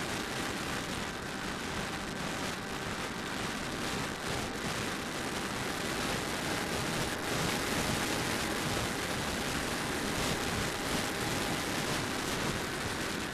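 Steady rush of air over the onboard camera of a Raven FPV flying wing in flight, with a faint steady whine from its electric motor and propeller underneath.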